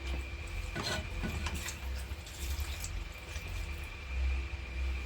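A few light clicks and knocks of kitchen utensils and cookware being handled, over a steady faint hum.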